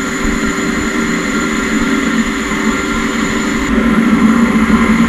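Doosan PUMA 2600SY II CNC lathe cutting 15-5 stainless steel with an internal grooving tool under flood coolant: a steady machining noise with coolant splashing and several steady tones. The sound grows somewhat louder about two-thirds of the way through, as a high whine drops out.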